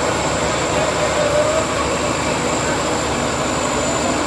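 Tractor diesel engines running hard and steady: a Mahindra Arjun and a Sonalika straining against each other in a tractor tug-of-war.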